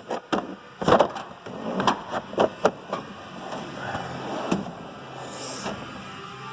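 Tool cases and kits being handled in a tool box side locker: a string of sharp knocks and clunks, the loudest about a second in, then quieter shuffling.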